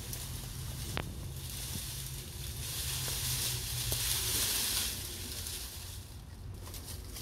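Dry-leaved cut tree branches rustling and crackling as they are handled and pushed about, with one sharp click about a second in.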